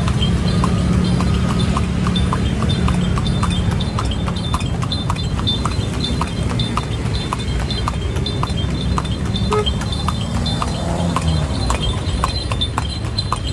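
A delman's horse clip-clopping on the road as it pulls the cart, heard from aboard: a steady run of hoof strikes, about two to three a second, over a steady low rumble.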